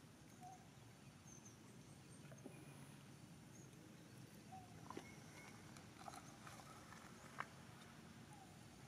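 Quiet outdoor background with scattered faint short chirps and a few soft clicks, one sharper click about seven seconds in.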